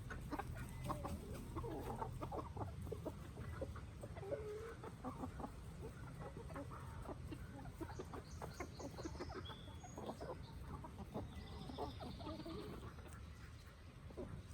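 Backyard chickens clucking, a steady scatter of short calls and soft clucks, with a few higher chirps past the middle.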